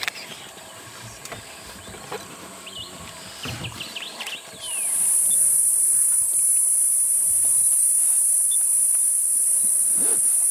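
Quiet bush ambience with a few short high chirps, then about four and a half seconds in a loud, steady, high-pitched chorus of night insects starts suddenly and carries on.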